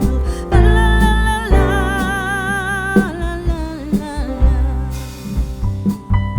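Background music: a song with a singer holding long, wavering notes over a heavy bass line.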